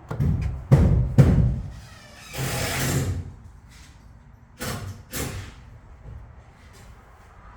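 A few heavy thumps and knocks, three close together in the first second and a half and two more about five seconds in, with a short rushing rustle between them.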